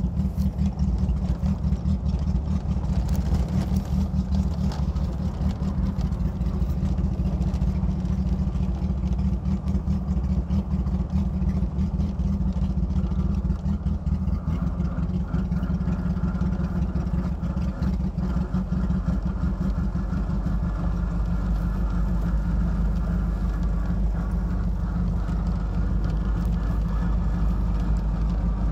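Vehicle engine running with a broken exhaust: a loud, rough, pulsing low rumble heard from aboard the moving vehicle. Its note drops deeper about two-thirds of the way through.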